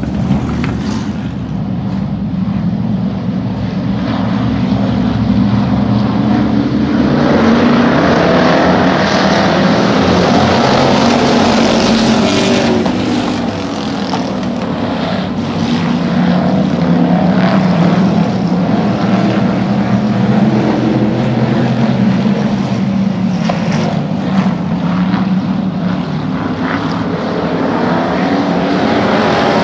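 A pack of hobby stock race cars running together on a dirt oval, their engines droning as a mass of overlapping pitches. The sound swells as the pack comes by about a quarter of the way in, dips briefly near the middle, then swells again.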